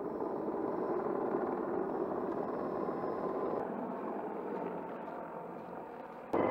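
Distant Mi-26 heavy-lift helicopter, its twin turbines and rotor making a steady drone that eases slightly, then suddenly gets louder near the end.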